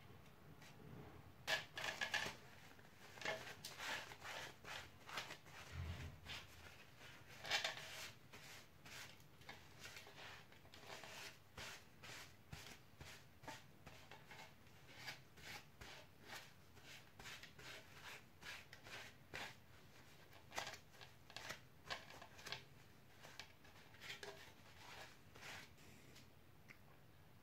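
Paper towel rubbing and crinkling against a painted 3D-printed skull piece as the dark paint is wiped back: a faint run of short, irregular scuffs and rustles, a little louder in the first few seconds.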